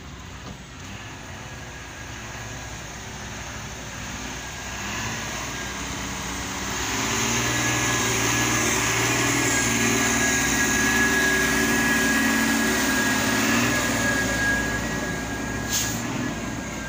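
Hino dump truck's diesel engine running as the truck pulls slowly past close by, growing louder for several seconds and then easing off, with a steady high whine over it. A short sharp click comes near the end.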